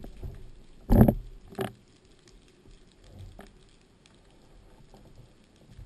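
Underwater handling noise from a speargun with a speared sea bream on the shaft: two brief knocks about a second in and half a second later, then faint water noise with small clicks.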